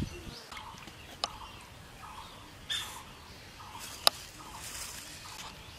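Birds calling in short, repeated chirps, with a few sharp clicks, the loudest about four seconds in.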